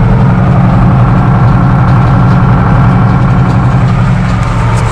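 Case farm tractor's engine running steadily, heard from inside the tractor's cab.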